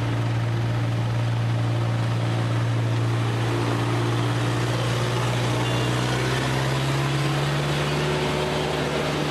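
A vehicle's engine running at a steady speed: a constant low hum that holds one pitch throughout.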